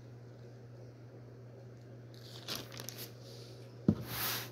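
Quiet room with a steady low hum, broken by light rustling and handling noises at a table: scattered soft clicks and crinkles, then a sharp tap about four seconds in followed by a short breathy hiss.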